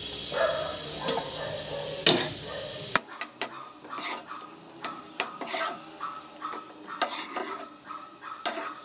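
A spoon stirring macaroni through a creamy white sauce in a pan, with repeated scrapes and clinks against the pan.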